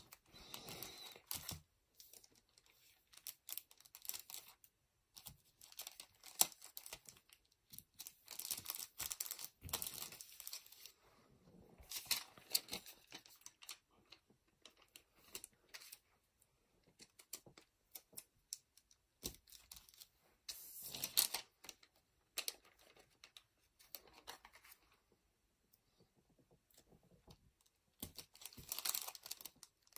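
Clear plastic hang-tab bags crinkling and rustling as booster packs are slid in and sealed, with tearing sounds of adhesive being peeled. The sound comes in irregular bursts of a second or two with short quiet gaps between.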